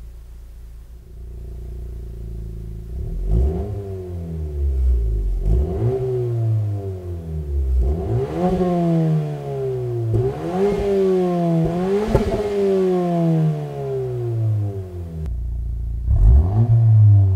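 2017+ Honda Civic Si's turbocharged 1.5-litre four-cylinder idling through a Remark cat-back exhaust, then free-revved about five times, each rev climbing quickly and falling back. The tone is mild, only a minor step up from stock and a little too quiet for an enthusiast's taste. Near the end the note cuts off abruptly and another rev starts.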